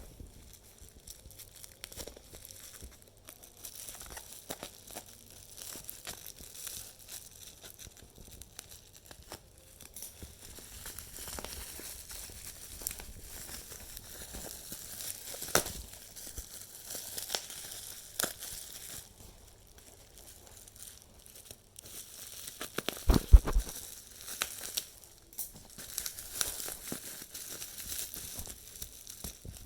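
Packaging being crinkled and torn open by hand, with scattered small clicks and rustles. A loud thump about three-quarters of the way through is the loudest sound.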